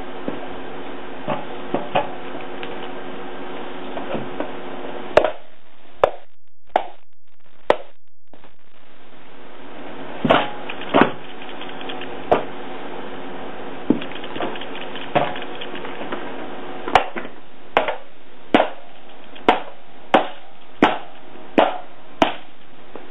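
A moneybox being stomped and kicked under Birkenstock sandals: about two dozen sharp impacts at uneven intervals, coming faster in the second half, over a steady background hum.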